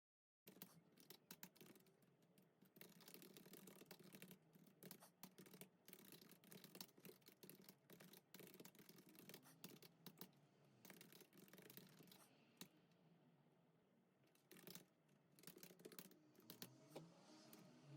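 Quiet, rapid scrubbing and small clicks close to the microphone, starting suddenly about half a second in and thinning out in the last few seconds.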